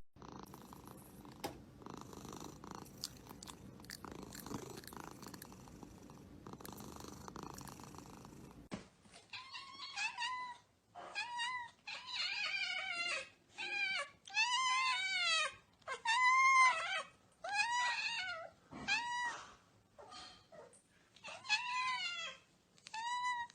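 A cat meowing over and over: about a dozen short, high, rising-and-falling meows in quick succession, starting about nine seconds in after a stretch of faint noise.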